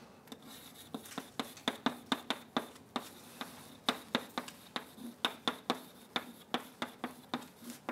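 Chalk writing on a blackboard: an irregular run of sharp taps and short scratches, several a second, as each symbol is struck onto the board.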